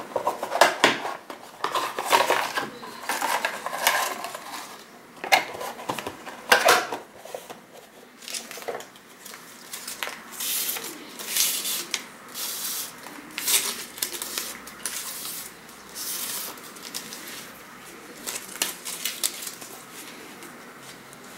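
Paper strip crackling and rustling as it is handled and twisted into a loop, then scissors cutting along the paper in a run of short snips, about one every second, which fade off near the end.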